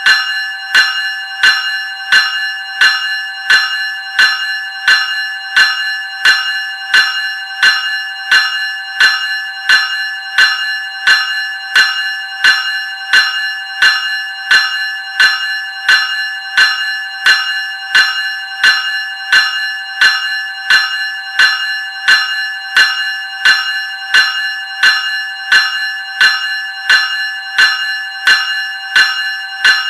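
Graham 373 Series electric bell ringing continuously in evenly spaced strokes, roughly three every two seconds. Each stroke leaves a bright metallic ring that carries into the next.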